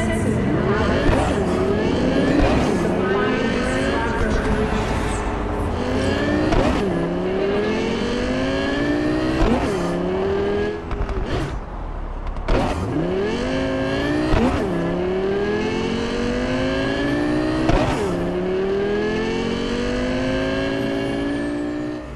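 Racing video game audio: a car engine revving up through the gears, its pitch climbing and then dropping sharply at each upshift, several shifts in a row.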